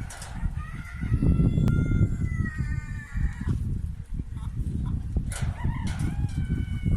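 A rooster crowing, one drawn-out crow followed by a second that starts about five seconds in, over a steady low rumbling noise.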